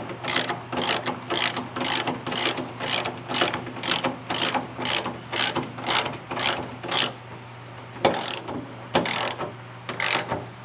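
Hand ratchet wrench worked back and forth in quick strokes, about two a second, running down a bolt on a car's subframe connector. It pauses about eight seconds in, then gives a few more strokes. A steady low hum runs underneath.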